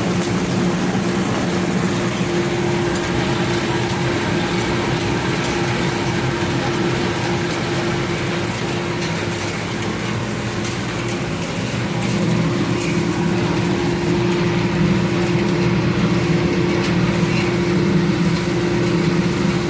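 Machinery for harvesting alfalfa leafcutter bee cells from nesting boards running steadily: a constant mechanical hum with a steady low tone, growing slightly louder about twelve seconds in.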